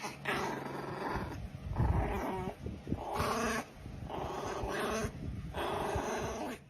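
A pet animal making a string of about six short, drawn-out vocal calls with brief pauses between them.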